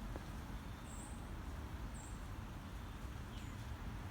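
Two short, high bird chirps about a second apart over a steady low rumble of outdoor background noise.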